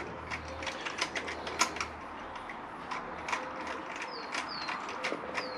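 A hand ratchet clicking in short, irregular runs as cam-cap bolts are undone on a Honda VFR800 VTEC engine.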